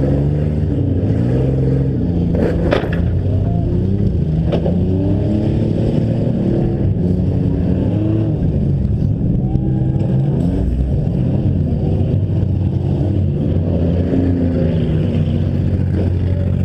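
Several demolition derby car engines revving up and down at once, overlapping, with two sharp bangs about three and four and a half seconds in.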